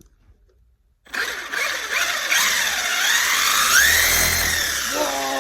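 Electric RC monster truck motor running hard, a whine that rises and falls with the throttle over loud drivetrain and tyre noise, starting about a second in. Near the end a pitched tone slides steadily downward.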